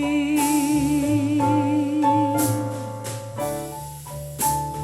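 A slow pop love song played back through a Telefunken RA 100 integrated amplifier: the singer holds the last note of the line with vibrato for about three seconds over the band, then the band plays on with steady drum hits and keyboard chords.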